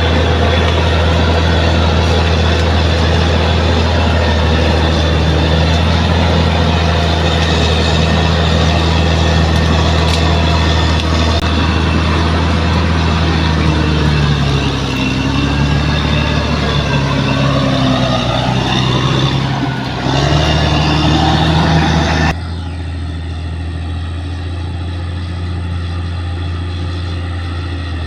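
Heavy diesel engine of a bulldozer running hard with a steady low drone; about halfway through its pitch sags and wavers as it works under load, then the sound cuts abruptly to a quieter, duller engine drone.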